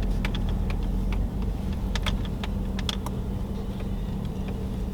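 Inside a car's cabin while driving slowly: a steady low engine and road rumble with a constant hum, and scattered light clicks and ticks.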